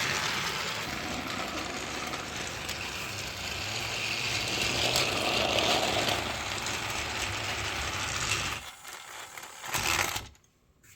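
Motorized Fisher-Price Thomas toy engine running on plastic track, its small gear motor whirring with a mechanical clatter. The sound drops off about three-quarters of the way through, comes back briefly, then stops.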